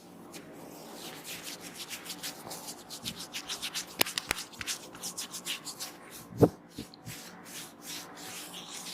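Hands rubbing briskly over hair and scalp during a head massage: a quick, uneven run of rustling strokes with a couple of sharp clicks, and one louder thump about six and a half seconds in.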